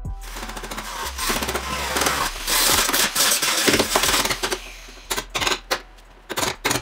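Hammer striking a chisel driven into the spot-welded seam of a steel car body panel, splitting the panel apart: a fast metallic clatter of strikes, densest in the middle, then separate blows near the end.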